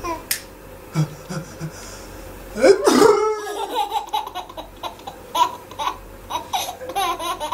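A person laughing hard: a loud, high laugh that rises and falls about two and a half seconds in, then a run of short, choppy laughs.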